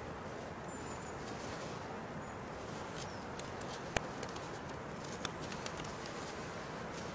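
Knife whittling a wooden stick, carving a round reduction: faint scraping with a few sharp clicks of the blade on the wood, the loudest about four seconds in, over a steady background hiss.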